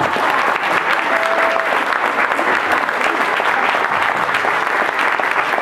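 Audience applauding: many hands clapping at once in a steady, dense patter. A short single held note sounds over it about a second in.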